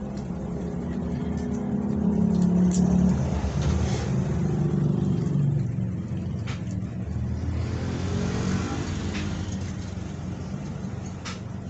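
Engine of a passing motor vehicle, getting louder over a few seconds and then fading, with its pitch rising again about eight seconds in. A few faint short clicks sound over it.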